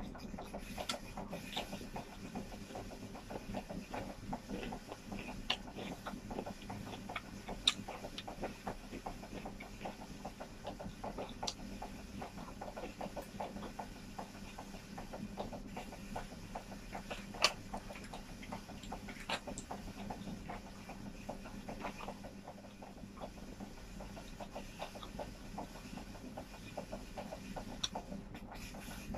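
Close-miked eating sounds: chewing and mouth smacking, with fingers working rice and chicken on a plate, a constant stream of small irregular clicks and two sharper clicks, over a faint steady hum.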